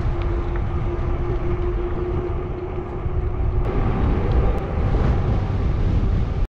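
Wind buffeting and rushing over the camera microphone on a moving e-bike, a loud low rumble, with a steady hum through the first half that fades out.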